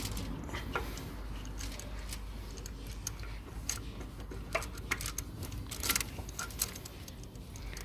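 Irregular light metallic clicks and clinks of small engine parts and tools being handled during hand work on the timing chain.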